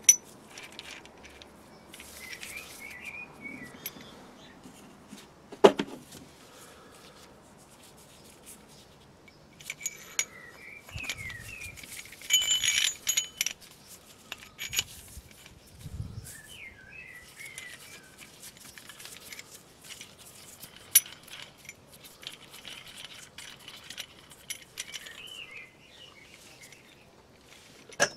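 Steel parts of a brake caliper piston rewind tool clinking and knocking as they are handled and a plate is slid over the threaded winder, with a few sharp metallic clicks and a ringing clatter about twelve seconds in. Birds chirp faintly in the background.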